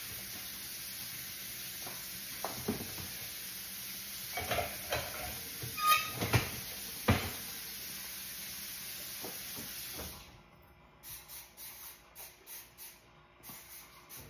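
Kitchen faucet running in a steady hiss while dishes clink and knock as they are rinsed and set into a dishwasher rack, the loudest knocks coming in the middle. The water shuts off about ten seconds in, leaving lighter taps and clinks.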